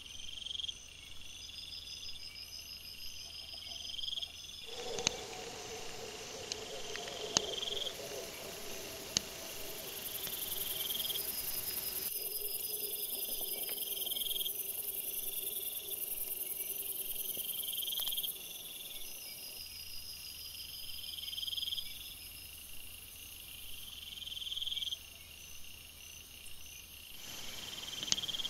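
Night insects, crickets or similar, chirping in a steady repeating pulse about once a second, recorded by a trail camera's microphone. The background hiss changes abruptly several times, and a few sharp clicks come between about five and nine seconds in.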